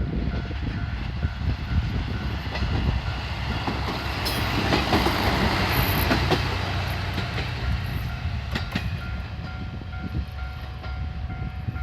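Level-crossing alarm ringing in a steady repeated ding while a diesel railcar passes over the crossing. Its rumble and wheel clicks are loudest about halfway through, then fade.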